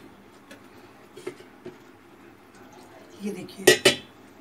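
A metal spoon mixing gram-flour and semolina batter in a plastic bowl, with a few light clicks. About three and a half seconds in comes a loud double clatter of metal.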